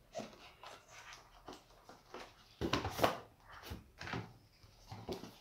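A cardboard phone box and plastic wrapping being handled while the phone is taken out: a run of irregular rustles and scrapes, loudest about three seconds in.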